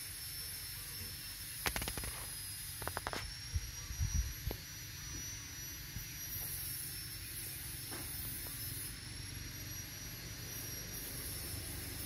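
Steady outdoor background: a high hiss with a faint high-pitched whine and a low rumble, broken by a few sharp clicks a couple of seconds in and low thumps around the middle.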